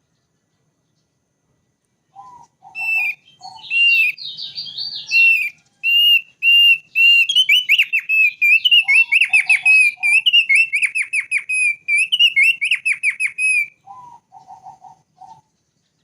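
Thick-billed white-eye (opior paruh tebal) singing: after about two seconds of silence, a long run of rapid, repeated whistled notes lasting about eleven seconds, with short groups of lower notes before, during and after it.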